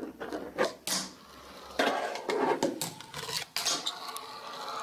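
A fingerboard being ridden and flipped on a ramp: sharp clacks as the small deck is popped and lands, with the wheels rolling in between.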